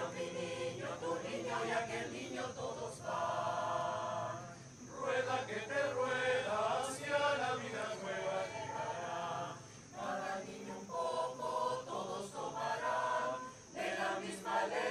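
Mixed choir of men and women singing in chords, with a few short breaks between phrases.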